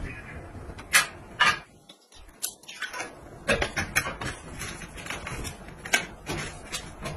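Irregular sharp knocks and clacks from a folding metal step ladder as someone in slippers climbs its steps.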